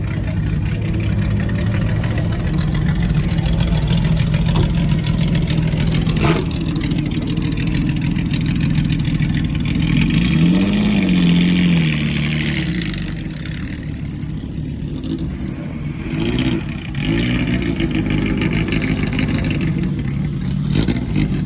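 Historic racing car engines idling, with a throttle blip that rises and falls about ten seconds in and shorter revs around sixteen to seventeen seconds.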